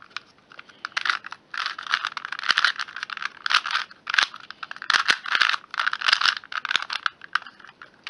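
Plastic 2x2 Rubik's cube being turned again and again in the hands, its layers clicking and scraping at each turn, about two turns a second.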